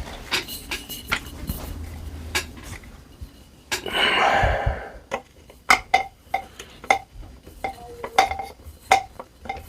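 Metal air-rifle parts being handled during assembly: scattered sharp metallic clicks and clinks, with a brief rushing noise about four seconds in, then a quicker run of ringing clinks.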